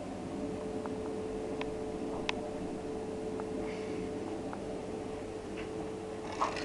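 Vacuum cleaner running steadily, a constant hum with one held tone and a few faint ticks.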